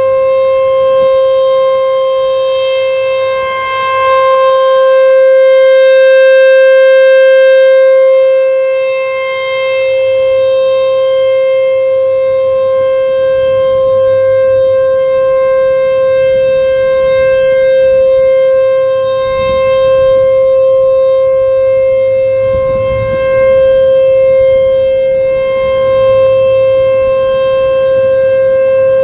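American Signal T-128 rotating outdoor warning siren sounding at full speed on one steady pitch. Its loudness swells and fades every few seconds as the rotating head sweeps past.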